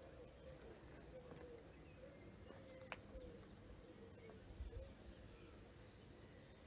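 Near silence: faint ambience with distant birds chirping now and then, and a single sharp click about three seconds in.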